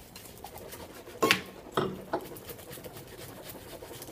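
Two short slurping sips of red wine from a glass, about a second and a half in, over faint scraping at the counter.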